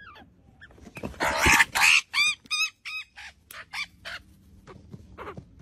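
Australian magpie calling: a loud harsh squawk about a second in, then a quick run of short rising-and-falling calls, about three a second, that tail off.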